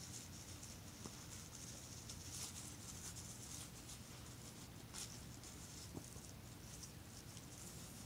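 Faint scratchy crunching and nibbling of a deer feeding at ground level, coming and going, with a few soft clicks over a steady low hum.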